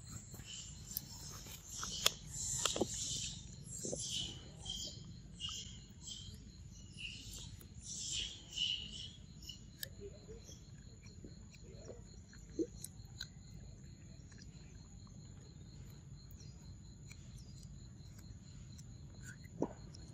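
A run of short, high-pitched chirping animal calls through the first half, then a steady high insect drone with a few scattered clicks.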